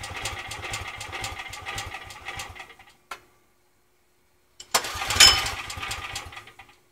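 Small single-cylinder engine on experimental electronic fuel injection running unevenly, then dying out about two and a half seconds in. After a short silence it is restarted, catches loudly and runs for under two seconds before stalling again: the hand-set fuel mixture is not yet right.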